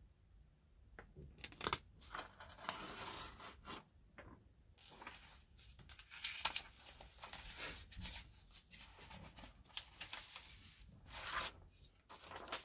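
Sheets of drawing and graph paper rustling as they are lifted, turned and slid aside on a cutting mat, in an irregular string of short swishes with a few sharp taps.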